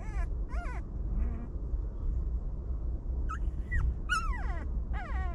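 Young puppies whining: short, high-pitched cries that rise and fall in pitch, two near the start and then a run of falling cries from about three seconds in, over a steady low rumble.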